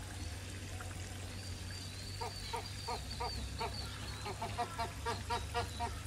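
Flamingos honking: a run of short, repeated calls, about three a second, starting about two seconds in and coming quicker and louder toward the end.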